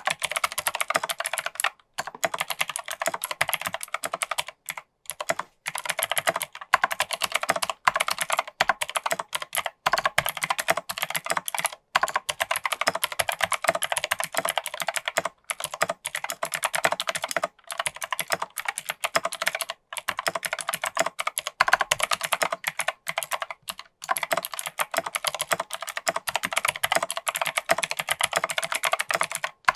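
Continuous typing on a mechanical keyboard with Kailh Pro Light Green clicky switches on an alumina plate in a plastic case: a dense stream of sharp clicks with short pauses every couple of seconds.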